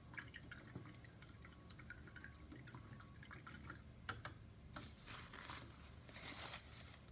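Paintbrush being rinsed in a cup of water: small clicks and taps of the brush against the cup, then a couple of seconds of faint swishing near the end.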